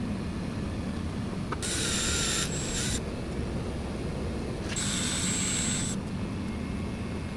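Power drill running in two short bursts of about a second each, driving in the screws of male poppet panel fasteners.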